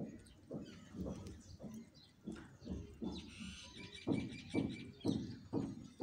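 Alexandrine parakeet calling: a regular run of short calls, about two a second, that grow louder about four seconds in, with a high chirping trill just before.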